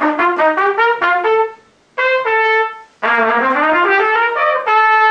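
Trumpet playing two quick rising scale runs, each ending on a long held note that leaves the scale unresolved, short of its home note.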